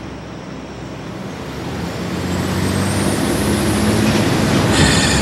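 Aircraft engines of a military transport plane running and growing steadily louder, with a faint high whine rising in pitch as they spool up.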